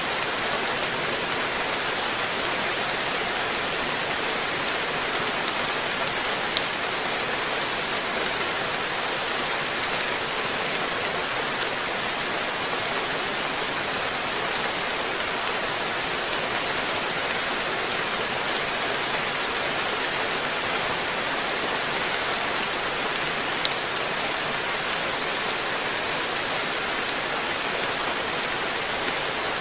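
Steady rain falling on a garden koi pond, an even hiss with a few sharper drop ticks scattered through it.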